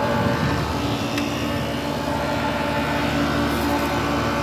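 Outdoor central air-conditioner condensing units running: a steady hum with several held tones over the rush of the condenser fans.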